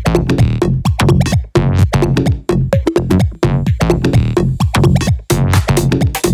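Electronic tech-house beat: a programmed drum-machine pattern with synth lines, repeating in a steady rhythm.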